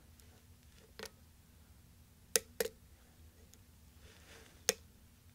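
Short, sharp metallic clicks of a hook pick working the pin stack of a weathered five-pin Schlage pin-tumbler cylinder held under a top-of-keyway tensioner. There are four clicks: one about a second in, two close together midway, and one near the end.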